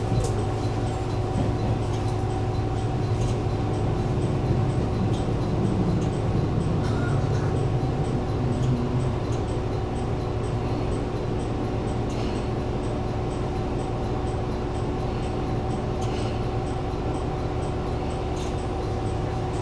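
Diesel railcar heard from inside the passenger cabin: a steady, even low hum with two steady whining tones above it and faint light ticking.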